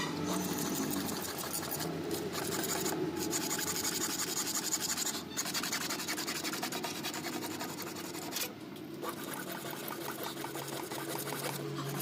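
Continuous rasping scrape, as of a tool working on pipe material, broken by short pauses about three, five and eight and a half seconds in.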